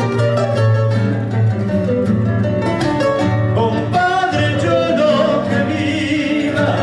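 A man singing a song to nylon-string acoustic guitars strummed in a steady rhythm.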